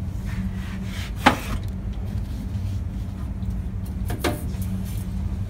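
Books being handled on a metal library shelf: two brief scrapes or rubs, about a second in and again about four seconds in, over a steady low hum of room tone.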